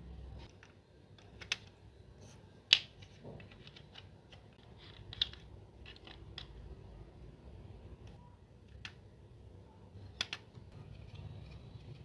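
Small parts and hand tools handled on a workbench while a toy-scale model car is worked on: scattered light clicks and taps, the loudest a sharp click near three seconds in.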